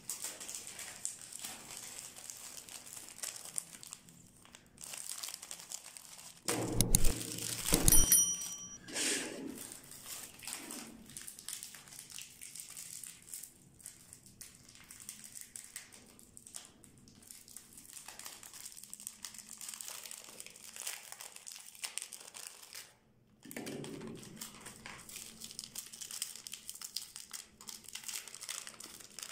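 Plastic wafer-bar wrappers crinkling and rustling as they are handled and torn open. A cluster of loud knocks and handling thumps comes about seven to eight seconds in, and another thump comes later.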